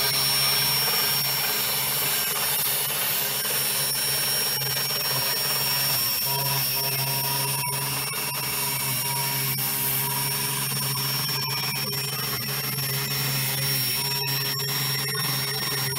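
Electric drive motors of an in-pipe crawler robot running steadily as it drives along the pipe: a low whirring hum with a constant high whine and scattered clicks and rattles.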